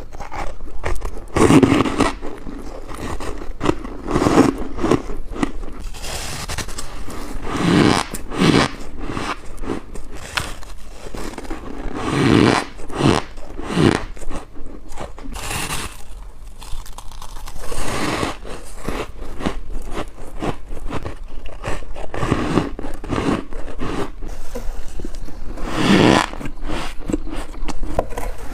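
Close-miked bites into freezer frost, a crunchy, scraping crackle repeated every second or two as the frost is bitten and chewed.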